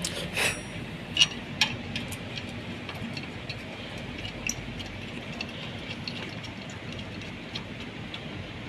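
Steady running noise of machinery with a few sharp metallic clicks and taps from metal parts being handled, the two loudest close together at about one and a half seconds in.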